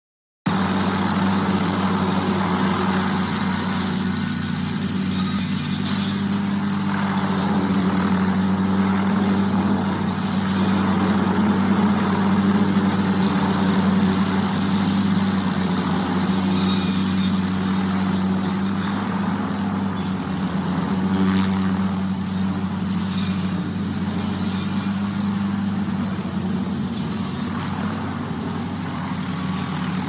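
Helicopter hovering overhead with its suspended aerial tree-trimming saw running: a loud, steady engine drone with a strong low hum.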